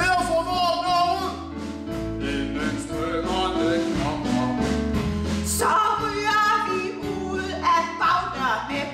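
A man and a woman singing a Danish revue song, with bass and keyboard backing music.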